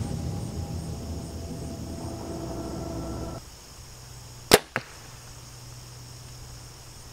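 A compound bow is shot about four and a half seconds in: a sharp snap as the string is released, and a quarter second later a smaller knock as the arrow strikes the block target. Before the shot, background music plays and then cuts off suddenly.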